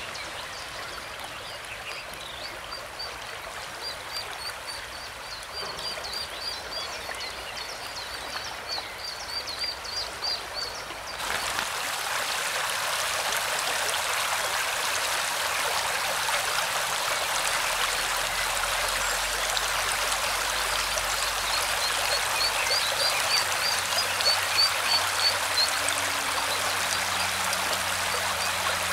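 Fast river current rushing, turning abruptly louder about a third of the way in, with the rapid high peeping of mallard ducklings over it in the first third and again near the end.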